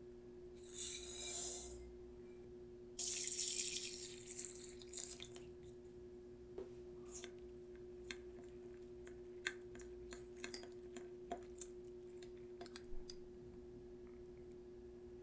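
Water running briefly from a tap, twice: a short run about a second in, then a longer one that starts abruptly and tapers off. It is followed by scattered drips and small clicks, with a steady low hum underneath.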